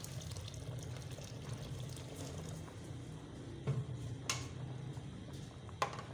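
A large pot of liquid boiling vigorously on a gas burner, a steady bubbling with a low rumble underneath. Three sharp clicks come in the second half.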